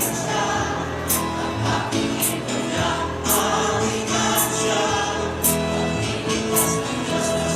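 Choral music: a choir singing held notes over a steady beat, with a high percussion hit about once a second.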